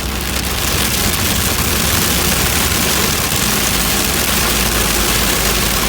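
Heavy rain mixed with hail drumming steadily on a car's roof and windscreen, heard from inside the cabin over the low hum of the car's engine and road.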